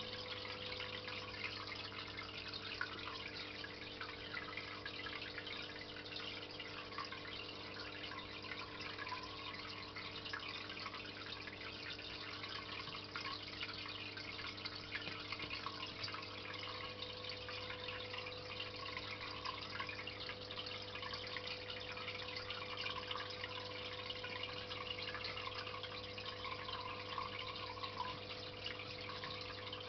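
Aquarium pump running: a steady trickle of small drips and splashes of water over a low, steady motor hum.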